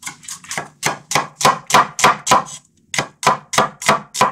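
Chinese cleaver chopping red onion on a bamboo chopping board: quick, even strokes, about four a second, with a short pause a little before three seconds in.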